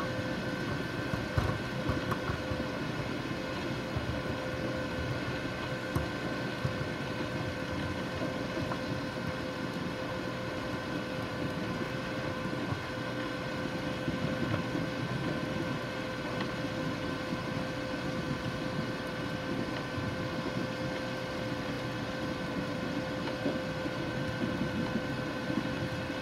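ROPA sugar-beet cleaning loader running steadily as it loads beets from a clamp into a truck: a constant engine and conveyor drone with a steady whine over it, and a few small knocks.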